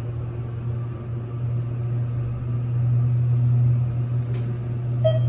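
Dover elevator, modernized by thyssenkrupp, travelling up in its car with a steady low hum. A short chime sounds near the end as the car reaches the floor.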